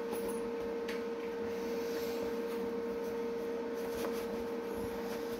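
Steady hum of a machine running, with one constant mid-pitched tone over a faint hiss. There are a couple of faint clicks, about a second in and again about four seconds in.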